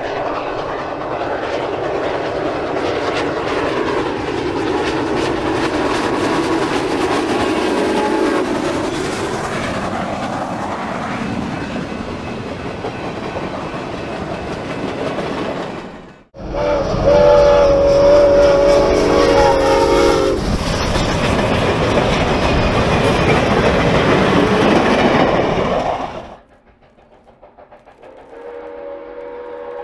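Soo Line 1003, a 2-8-2 Mikado steam locomotive, running past at speed: a dense rush of exhaust and wheels on the rails, with its steam whistle sounding. It breaks off abruptly twice. The whistle is loudest for a few seconds just after the first break and comes in again faintly near the end.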